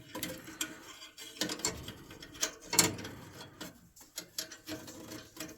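Hand tools working on sheet-metal furnace parts: irregular metallic clicks, knocks and rattles, the loudest knock about three seconds in.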